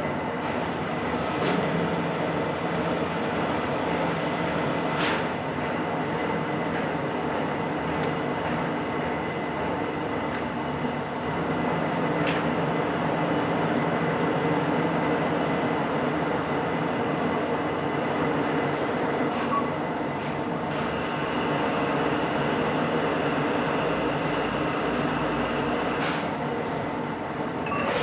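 Machinery running steadily with a loud, even mechanical noise, a faint high steady tone and a few sharp clicks, about four in all.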